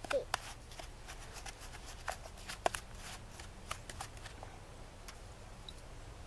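Wooden spoon stirring flour-and-water bannock dough in a metal camp cup: a run of quick scrapes and clicks against the cup, thinning out about four to five seconds in.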